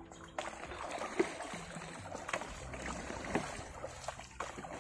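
Paddles splashing in river water as a raft is paddled, with a stroke about once a second over steady lapping water.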